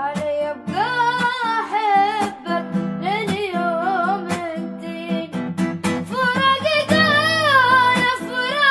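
Arabic song: a solo voice sings a drawn-out, wavering melody over a strummed acoustic guitar.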